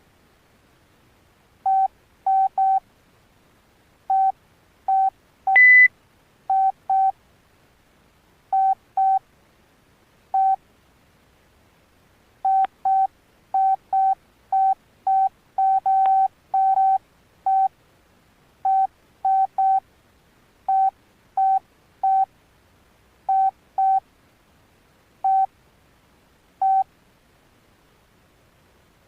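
Alcatel OneTouch Retro flip phone's keypad key-press beeps: short beeps, all at the same pitch, sounding singly and in quick pairs at irregular spacing as the buttons are pressed. About six seconds in comes one higher, louder beep.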